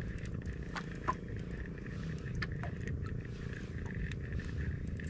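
Shimano Ocea Jigger conventional jigging reel being cranked against a hooked fish on a bent rod, giving a steady low purr with a faint whine and a few light clicks.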